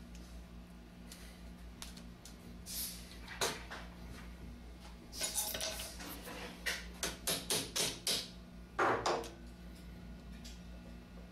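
Metal parts of an automatic drywall taper's head being handled and fitted together: scattered light clicks and knocks, a quick run of about six taps in the middle, and a louder scrape near the end, over a steady low hum.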